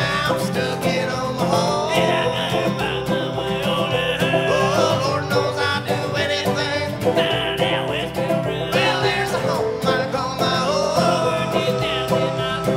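Bluegrass string band music, with plucked acoustic strings over a steady pulse.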